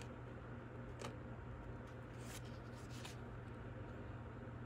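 Faint handling of baseball trading cards: soft flicks and rustles as cards are slid and turned over by hand, a few of them about a second apart, over a low steady hum.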